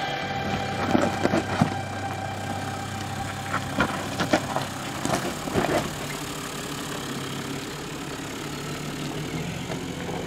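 A Toyota LandCruiser 100-series engine running low and steady as it crawls over a rocky track. Stones crack and crunch under the tyres several times in the first six seconds.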